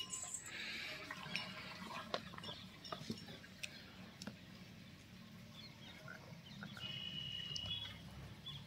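Two zebu bulls sparring with horns locked: a short noisy rush near the start, then scattered sharp knocks and scuffs as they push against each other.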